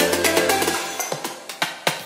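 Background electronic music with a beat, growing quieter in the second half.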